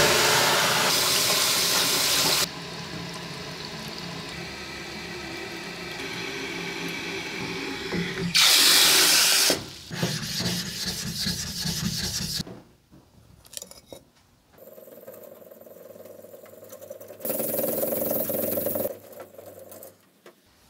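Water spraying from a hand shower head onto a whetstone and into a plastic tub, loud at the start and again about eight seconds in. Around ten seconds in comes gritty rubbing as a stone is worked back and forth over the wet whetstone's face.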